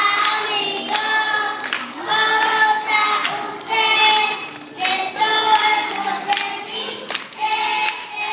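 A group of young children singing a song together in unison, in phrases of held, high notes with short breaks between them.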